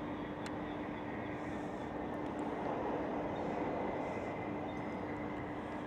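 Steady outdoor background noise with a constant low hum, swelling slightly about halfway through.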